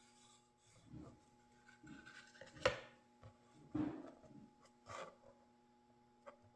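Hands rubbing and handling the wooden frame's backing in several short scrapes, with a sharp tap about two and a half seconds in.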